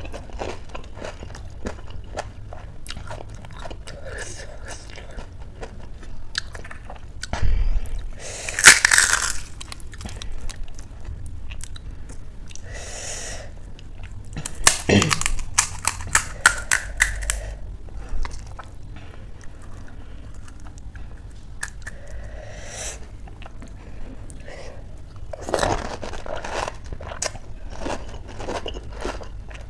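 Pani puri being eaten: crisp puri shells filled with spiced water crunching and being chewed, with a few louder bursts of crunching.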